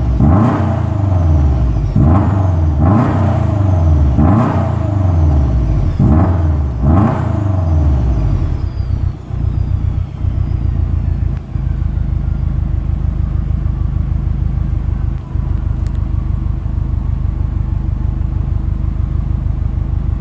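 Subaru Impreza STi S201's turbocharged flat-four engine and exhaust, blipped sharply about six times in quick succession, with a faint falling turbo whistle after the revs. About eight seconds in it settles into a steady idle.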